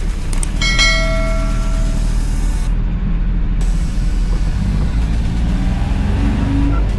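DFSK Unimo's 1357cc diesel engine running steadily, heard inside the cab as the mini-truck pulls away from a near standstill. A short ringing tone sounds about a second in and fades away.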